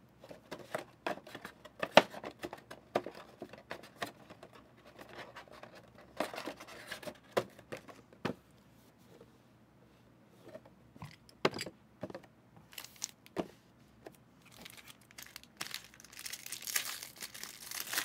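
Foil trading-card pack wrappers crinkling and tearing as the packs are handled, with sharp clicks and taps as they are set down; the crinkling thickens near the end.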